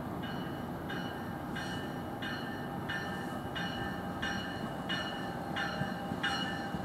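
A train's bell ringing steadily, about three strikes every two seconds and growing louder as the train approaches, over the rumble of the train on the rails.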